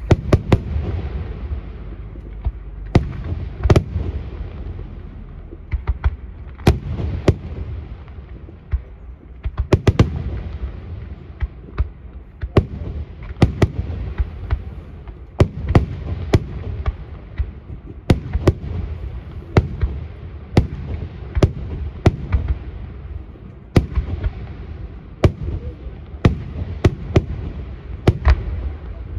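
Aerial fireworks display: shells bursting in a dense barrage, with many sharp bangs, often several a second, over a continuous low rumble.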